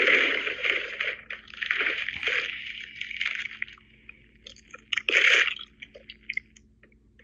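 Packaging crinkling and rustling as a package is unwrapped, heard over a phone video call: three loud bursts of crackling with small crackles between them.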